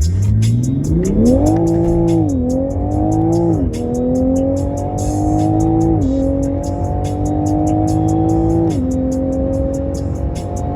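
Toyota GR Supra's engine and exhaust under hard acceleration through the gears: the engine note climbs steeply, then drops at each of four upshifts, about two, three and a half, six and nearly nine seconds in, climbing more slowly after each. Background music with a quick beat plays along.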